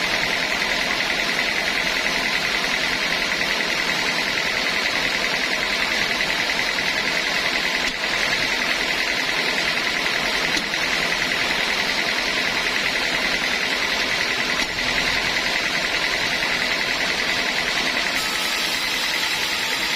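Sawmill saw running steadily on teak wood, a constant loud machine noise with a high whine held throughout.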